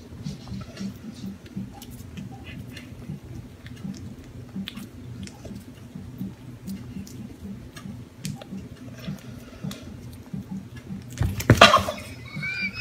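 A puppy chewing dry food from a plastic bowl, with a steady run of small clicks and crunches. Near the end comes one loud scrape.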